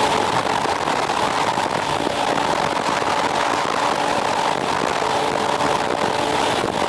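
Motorcycle cruising at expressway speed: a steady rush of wind and road noise with a faint, even engine drone underneath.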